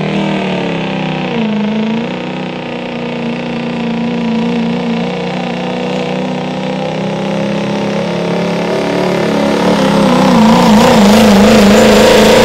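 Turbo diesel pickup engine running hard at high revs while pulling a weight-transfer sled. The engine note dips briefly about a second and a half in, then holds steady. It grows louder and wobbles up and down in pitch near the end.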